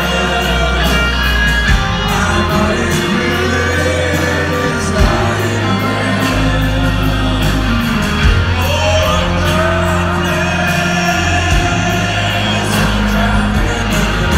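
Live rock band playing electric guitars, bass and drums with a lead singer, the crowd shouting and whooping along. Heard loud from within the audience in a large hall.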